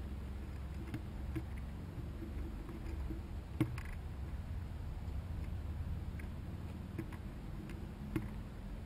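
Chipmunks shucking dried corn: scattered small clicks and taps of kernels being worked, the sharpest near the middle and another near the end, over a steady low rumble.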